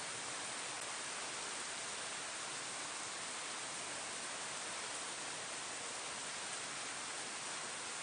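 Steady rain falling on leaves, an even hiss with no separate drops standing out.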